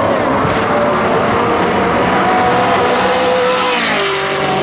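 Two drag-race cars, one a Ford Fairmont, accelerating hard at full throttle down the strip from the launch. The engine pitch climbs, then drops sharply about four seconds in as the cars pass by.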